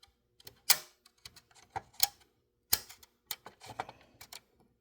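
Irregular sharp clicks and knocks from the reassembled mechanical timer assembly of a Maytag dryer being handled, about a dozen over a few seconds, the loudest about a second in and near the middle.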